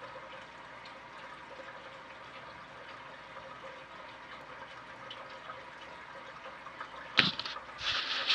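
Tap water running steadily from a hose into a 180-gallon glass aquarium that is being filled. About seven seconds in there is a sharp knock, followed by brief clattering near the end.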